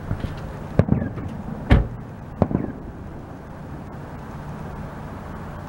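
Aerial fireworks shells bursting: about four sharp bangs in the first two and a half seconds, the loudest a little under two seconds in, then only a low steady background noise.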